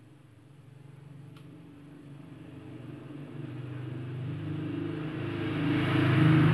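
A motor vehicle engine passing by, a low steady hum that grows steadily louder and peaks near the end.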